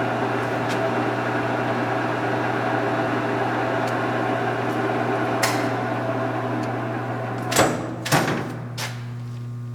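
Kingston HJ-1100 lathe's geared headstock and spindle running steadily in the medium range at about 230 RPM, a whirring gear noise over a constant hum. A couple of clunks come about seven and a half seconds in, and the gear noise then falls away, leaving only the hum.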